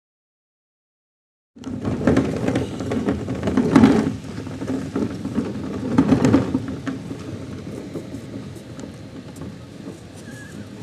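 Silence for about a second and a half, then the rumbling rattle of plastic wheelie bins rolled on their wheels over asphalt. It swells around four and six seconds in, then slowly eases off.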